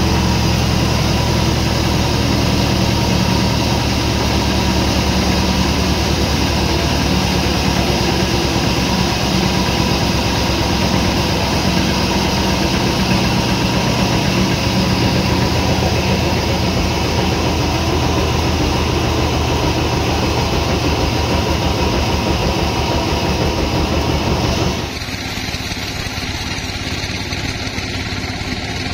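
Sawmill machinery running steadily with a constant engine-like drone. About 25 seconds in, the sound cuts abruptly to a quieter, duller running.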